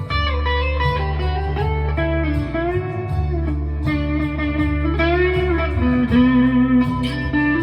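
Chapman ML1 Modern Standard electric guitar played through an overdrive pedal: single-note lead lines with string bends over a held low note.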